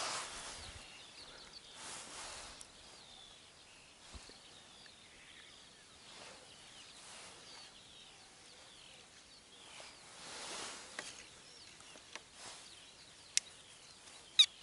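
Small birds chirping steadily in the background, with soft rushes of noise now and then and a few sharp clicks near the end.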